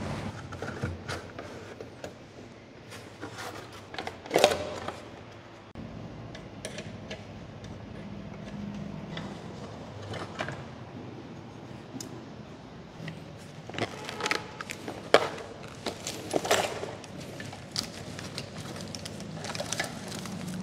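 Irregular knocks, clicks and rattles of plastic and metal motorcycle parts being handled and pulled off during disassembly, with a louder knock about four seconds in and a cluster of knocks later on.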